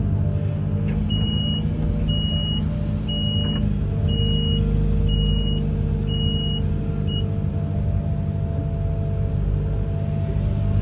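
Amphibious excavator's diesel engine running steadily, with a high electronic warning beep sounding seven times, about once a second, then stopping.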